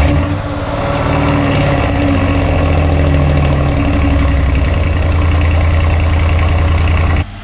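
Mercedes-AMG GLS 63's twin-turbo V8 just after a cold start, running at a loud, steady high idle. It stops suddenly near the end.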